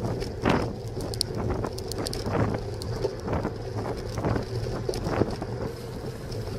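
Wind rushing over a bicycle-mounted camera's microphone while riding, in repeated short gusts about once or twice a second over a steady low hum.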